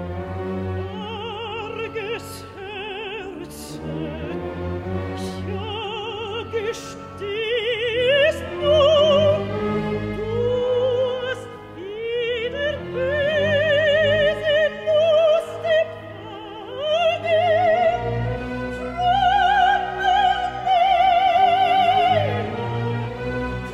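Soprano singing a German art song over an orchestra, her voice in wide vibrato, climbing to long held high notes in the second half.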